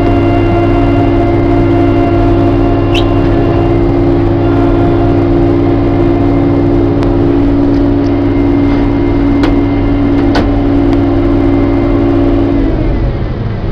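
New Holland TR70 combine running under load while harvesting corn: a steady engine and threshing drone with a strong held hum, broken by a few sharp clicks. Near the end the hum drops away and the sound gets quieter.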